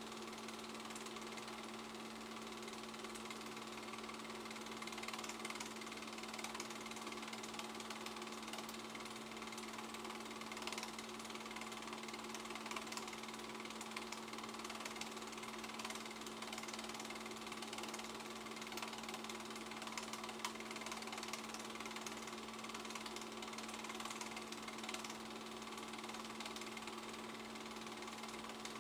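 Film projector running, a steady, rapid mechanical clatter over a constant hum.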